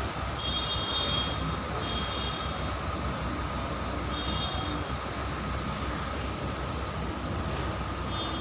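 200 kg gas furnace running: a steady burner and blower roar with a constant high whine, and faint higher tones that come and go a few times.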